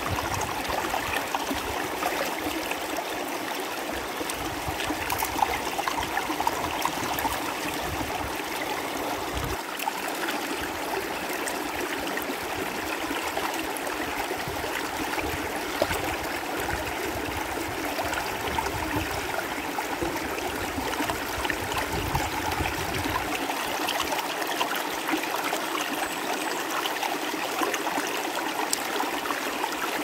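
Shallow river running over rocks and small rapids: a steady rush of flowing water.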